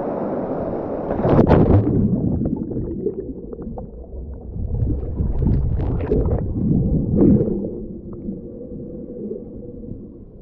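A snorkeller plunging into a river pool: a splash about a second and a half in, then the muffled underwater sound of bubbles, gurgling and small clicks, with a few louder bubbly bursts in the middle that die away.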